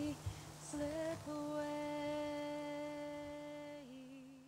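A woman's voice holds long sung notes over a steady low sustained tone, with a brief higher turn about a second in. Near the end the note dips slightly and wavers as the song fades out.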